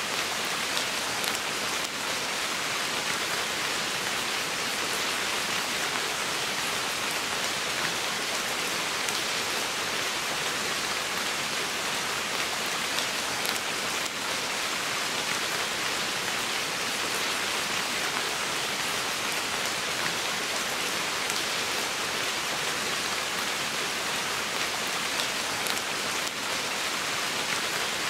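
Steady rain falling on forest foliage: an even hiss with faint ticks of single drops through it.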